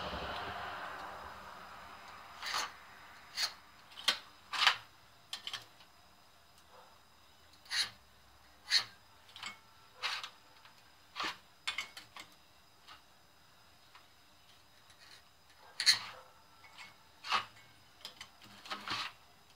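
Steel scribe scratching short lines on a metal block and a combination square's center head being set and tapped against its edges: about fifteen separate short scrapes and clicks with pauses between them.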